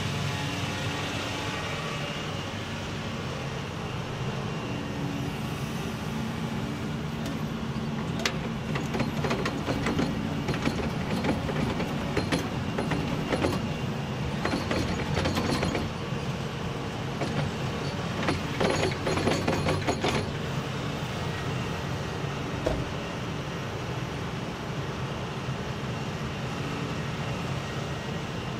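Doosan DX235LCR excavator's diesel engine running steadily under hydraulic load. Through the middle stretch there is a spell of rattling and clattering as soil and stones are dumped from the bucket into a steel tipper truck body, with one more knock a little later.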